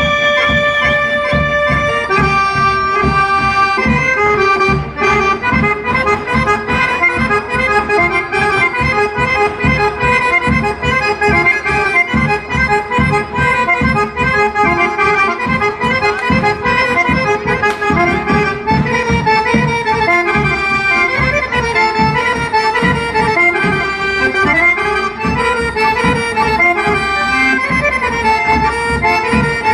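Live Serbian folk dance music led by accordions, with double bass and a drum keeping a steady beat. It opens on a held accordion chord, then moves into a fast running melody.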